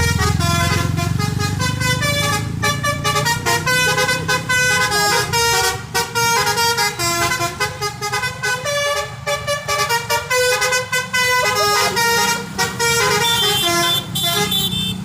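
A bus's multi-trumpet 'telolet' musical horn playing a quick melody of short, changing notes, with the bus's engine running underneath; the engine hum weakens about halfway through.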